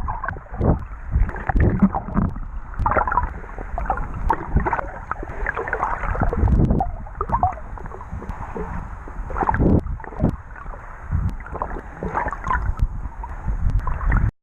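Seawater sloshing and splashing in uneven surges, with a low rumble of wind on the microphone.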